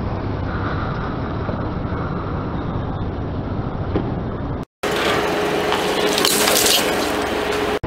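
A car's engine running with a low rumble. After a short cut about five seconds in, a brighter, noisier stretch with a steady hum as a car tyre rolls onto plastic drink pouches, loudest about a second and a half later.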